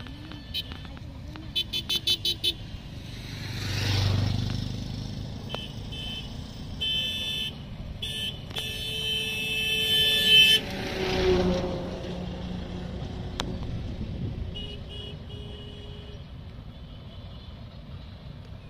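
Road vehicles pass close by and sound their horns. A quick run of short beeps comes about two seconds in, and a vehicle swells past around four seconds. A long horn blast of several seconds follows and ends as another vehicle goes by, its pitch falling as it passes.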